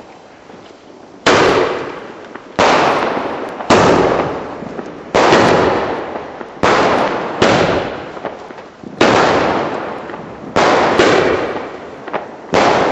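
Firework battery firing shell after shell: about ten sharp bangs, roughly one a second, each fading away in a long echoing tail.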